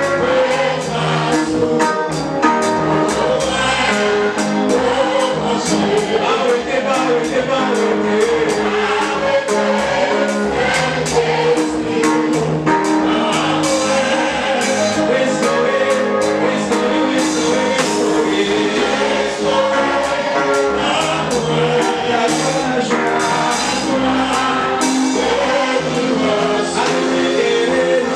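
A church congregation singing a gospel worship song together, with instrumental accompaniment and a steady percussion beat.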